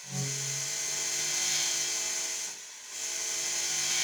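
Electric guitar played through a compressor set to full sustain: a single held note that sustains evenly, with a strong hiss over it. The note fades out about two and a half seconds in and swells back in a moment later.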